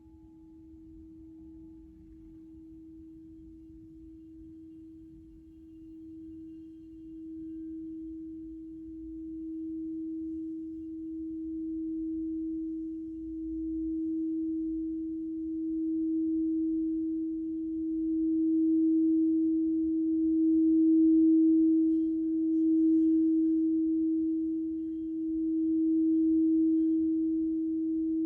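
Alchemical crystal singing bowl sounding one pure, steady tone, swelling gradually louder with a slow pulsing wobble about every two seconds as it is played.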